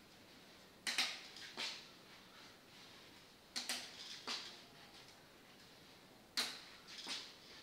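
Metal forearm crutches clicking on a tiled floor during a slow crutch gait, a cluster of two or three sharp clicks about every two and a half to three seconds as the crutches land and the person swings through.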